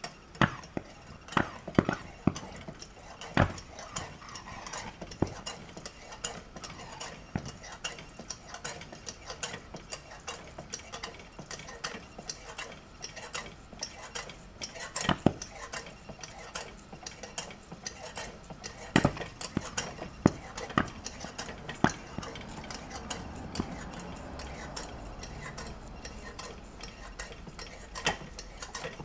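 Butterfly 828 kerosene pressure lantern burning with a steady hiss, while its base is worked by hand, giving irregular sharp metallic clicks and clinks. The lantern needs constant pumping to keep its pressure up.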